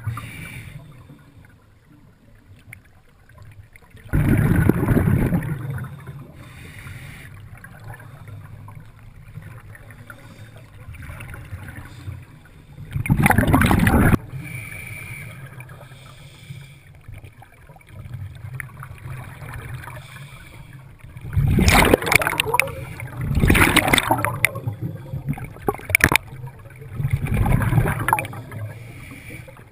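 Scuba diver's exhaled bubbles rushing and gurgling past the underwater camera in loud bursts every several seconds, with a quieter low rumble of water between breaths.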